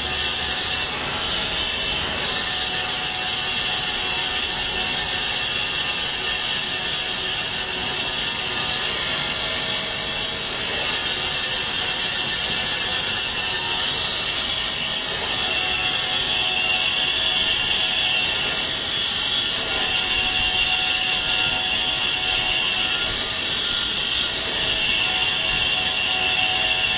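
Vertical foam-cutting band saw running steadily, an even high-pitched hiss from its motor and blade while foam is fed through.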